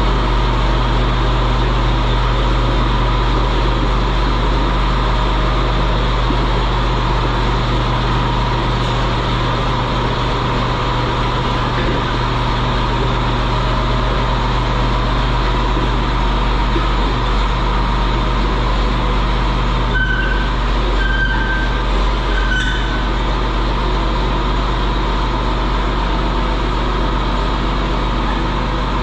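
Diesel engine of an old piece of heavy equipment running steadily on its first run after an oil and filter change. Three short high beeps come about twenty seconds in.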